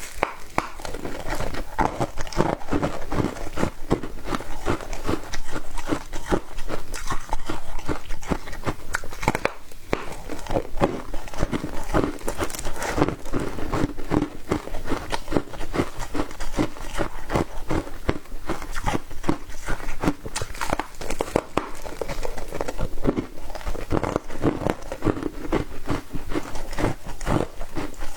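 Foam ice being bitten and chewed close to the mouth: a dense, steady run of crisp, crackly crunches, several a second.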